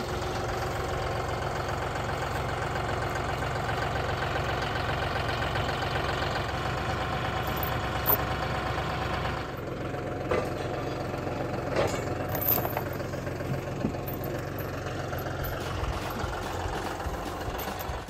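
John Deere loader tractor's diesel engine running steadily at idle. About nine and a half seconds in the sound drops and changes, and a few short knocks sound over the engine.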